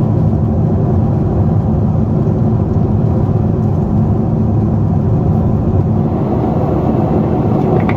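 Steady in-flight cabin noise of a Boeing 747-8 heard from a window seat beside the wing: a deep, even rumble of the engines and rushing air.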